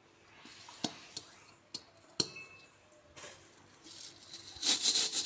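A few light metal clicks and clinks on a frying pan, then a run of quick scraping strokes near the end as a homemade scraper made from a hacksaw blade works at thick burnt-on crust in the pan.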